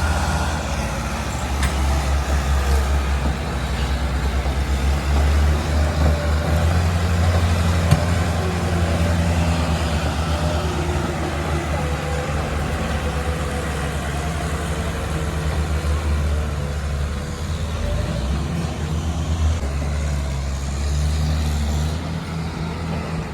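Heavy diesel engine of a farm or construction machine running steadily, with most of its sound a low rumble; it eases slightly near the end.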